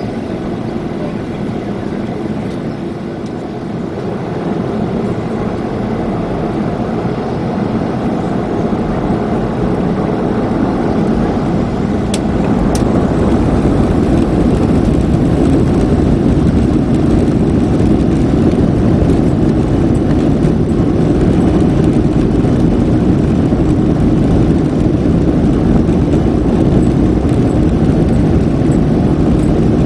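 Jet engines of a Boeing 737-500 running, heard from the cabin over the wing as the airliner taxis onto the runway. The steady engine noise grows louder through the first half, then holds level.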